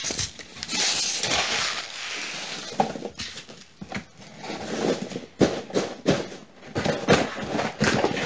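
A cardboard shipping box and its packing being handled. A rustling hiss for the first couple of seconds, then scattered taps, knocks and scrapes at uneven intervals.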